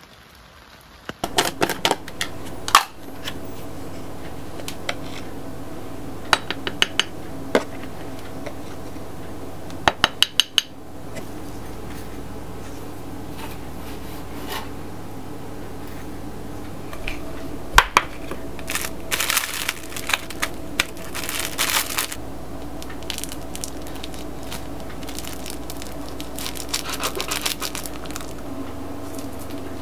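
Metal kitchen utensils clinking and tapping against dishes, with a quick run of taps about ten seconds in, and bursts of scraping later on, over a steady low hum.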